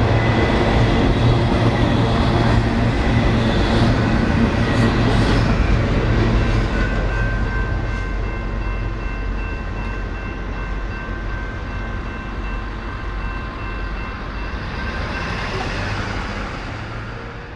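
Freight cars rolling past a railroad grade crossing, rumbling and clattering for the first several seconds. As the train clears, the crossing signal's bell rings on as a steady high ringing, stopping a couple of seconds before the end as the gates go up.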